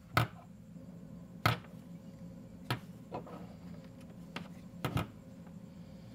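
Small tools and parts being handled on a workbench during a soldering job: about half a dozen sharp, irregular taps and clicks as the soldering iron and the encoder part are picked up and set down, over a steady low hum.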